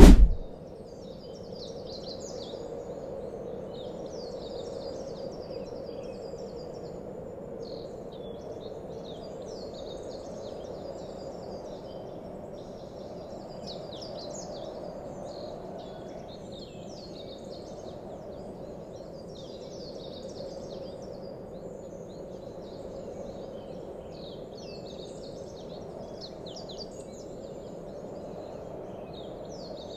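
Continuous chirping and twittering of many small birds over a steady low background noise.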